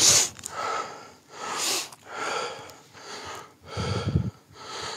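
A man breathing heavily and quickly, about seven loud breaths in five seconds, close to the microphone. There is a short low thump about four seconds in.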